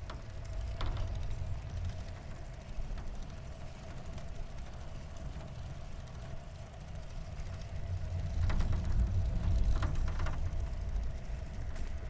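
Wind rush and tyre rumble from a Catrike 559 recumbent trike rolling along a paved trail, with a faint steady hum throughout and a few light clicks. The rumble grows louder for a couple of seconds around eight seconds in.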